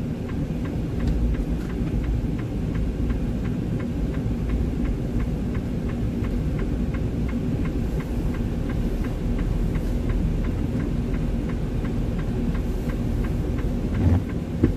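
Steady low rumble inside a semi-truck cab: a Freightliner Cascadia's diesel engine running as the truck creeps along slowly, with a faint regular ticking.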